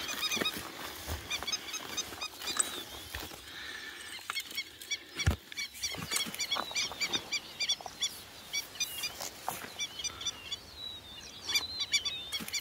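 Birds calling: rapid series of short, high-pitched notes, several a second, with brief pauses. A single low thump about five seconds in.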